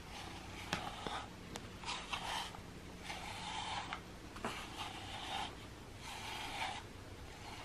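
A slicker brush's wire bristles raked through a cat's fur in a series of soft, scratchy strokes, about one a second.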